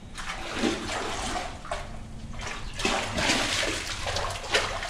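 A hooked sheepshead thrashing at the surface beside a kayak, splashing in irregular bursts that grow heavier in the second half.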